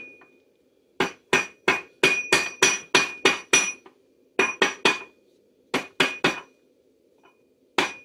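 Rubber mallet tapping a steel transmission gear to drive its shaft bearing down into the case. It comes in three runs of quick blows, about three a second, and each blow has a brief metallic ring. The bearing is not going in square and sits high on one side.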